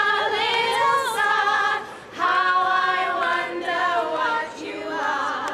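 Women singing a tune together without accompaniment, in two held phrases with a short break about two seconds in.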